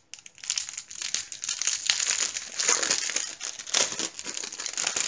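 Thin plastic packaging crinkling and crackling continuously as hands work open a clear bag of diamond-painting drill packets and pull the packets out.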